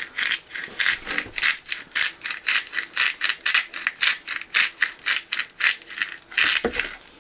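A shaker of pepper-and-garlic seasoning shaken over fish in quick, even strokes, about four a second, the seasoning rattling inside the shaker.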